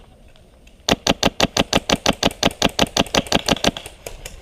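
Airsoft gun firing full auto: one burst of about nine shots a second starting about a second in and lasting about three seconds, with the last shots fainter.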